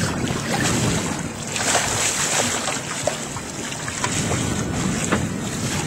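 Wind buffeting the microphone on open water, with water washing against a small boat's hull.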